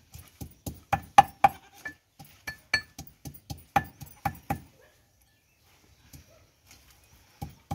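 Ginger and garlic being pounded in a small mortar, the pestle striking the vessel in a quick, irregular run of sharp ringing clinks for about four and a half seconds, then only a few faint taps.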